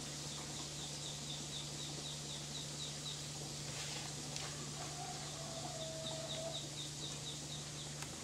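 A bird chirping in two runs of short high calls, about three a second, over a steady low hum and hiss.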